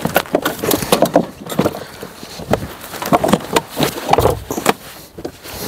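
Irregular clicks, knocks and scrapes of a car battery and its terminal being handled and worked at in the battery tray, hard plastic and metal parts knocking together.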